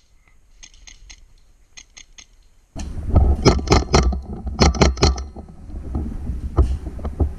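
A few faint clicks, then from about three seconds in, a loud low rumble of handling and movement on a rifle-mounted camera with a string of sharp snaps from the airsoft gun firing.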